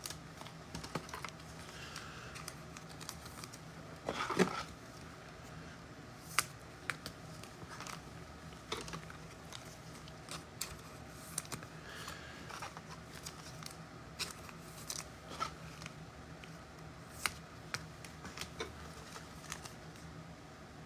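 Faint handling of trading cards and pack wrappers: scattered clicks, rustles and crinkles, with one louder rustle about four seconds in.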